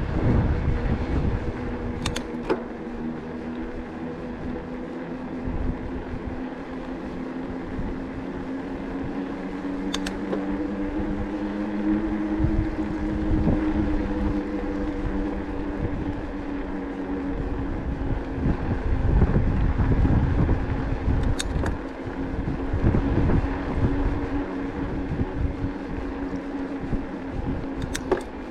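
Decathlon Rockrider e-bike's electric motor whining steadily under power, its pitch rising a little partway through, with wind rumbling on the microphone and a few sharp clicks.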